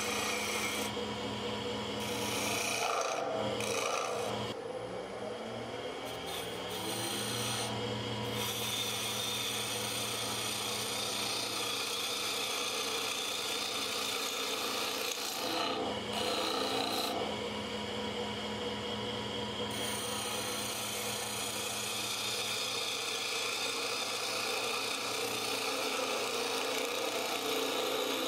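Wood lathe running with a steady hum while a hand-held turning tool cuts into a spinning blank of green arbutus, a dense wood: a continuous scraping hiss of shavings coming off. The cutting lets up briefly several times as the tool is lifted and set again.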